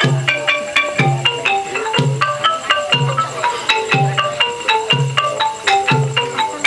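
Traditional Khmer dance music: a quick melody of struck notes on xylophone-like mallet percussion, several notes a second, over a low beat about once a second.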